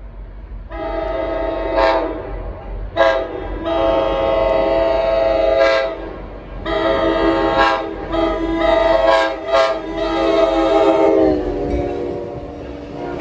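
NJ Transit locomotive 4303's multi-note air horn sounding four loud blasts: long, short, long, and a final long one that drops in pitch as the locomotive passes close by, then fades.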